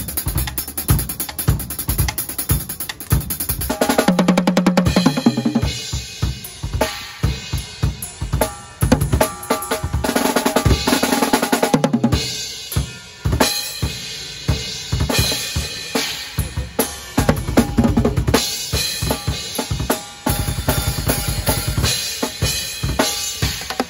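Acoustic drum kit with open-ended concert toms, played fast and continuously: dense bass-drum and snare strokes broken by rapid runs around the toms.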